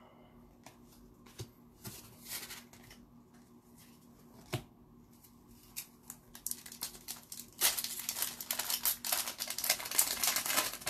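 Hockey trading cards and a card-pack wrapper being handled: scattered light clicks and rustles, then, about seven and a half seconds in, a dense stretch of crinkling and rustling.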